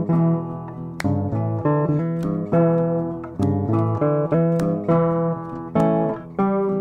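Background music: acoustic guitar picking and strumming with a steady beat.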